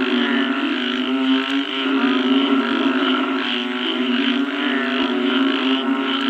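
A dense chorus of frogs calling after rain: many overlapping low croaks that merge into a continuous drone, with faster trilling calls above it.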